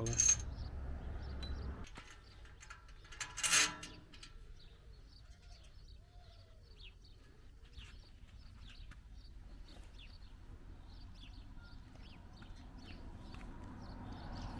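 Two short clatters, one at the start and a louder one about three and a half seconds in, then small birds chirping on and off.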